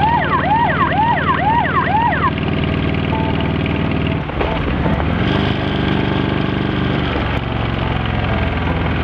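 Motorcycle engine running steadily on the move, with wind noise. In the first two seconds a quick run of about six rising-and-falling whoops plays over it. About four seconds in, the engine note drops and shifts as the bike slows for a hairpin bend.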